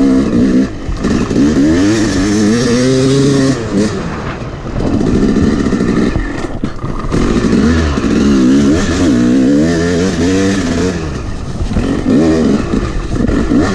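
Yamaha YZ250 two-stroke dirt bike engine being ridden hard, revving up and dropping back in pitch again and again with the throttle.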